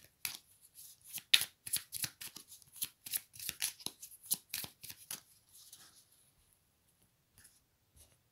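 Deck of oracle cards shuffled by hand: rapid papery strokes of cards sliding over each other. The shuffling stops about five seconds in, followed by a couple of faint taps.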